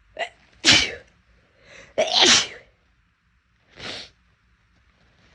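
A woman's loud, deliberately induced sneezes: two big sneezes about a second and a half apart, each after a quick breath in, then a softer, shorter burst about four seconds in.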